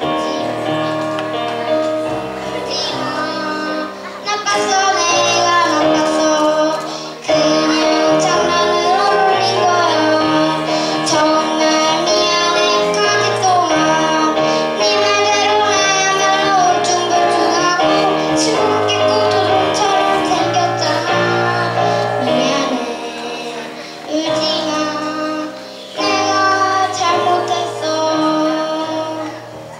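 A child singing a song into a microphone over a recorded musical accompaniment with a moving bass line, pausing briefly between phrases.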